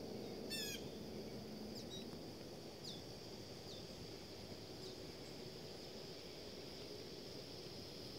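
Faint outdoor ambience of birds: a quick chattering call about half a second in, then several short high chirps spaced a second or so apart, over a steady high insect whine and a low background hum.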